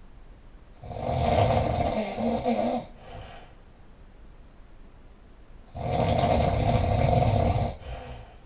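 A person snoring loudly: two long snores about five seconds apart, each lasting about two seconds and followed by a short, softer breath.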